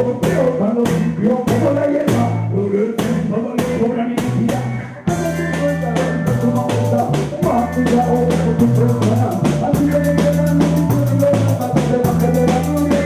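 Live reggae band playing: a repeating bass line, electric guitar and a drum kit keeping a steady beat, with a singer on a microphone. About five seconds in the music drops away for a moment and starts again abruptly.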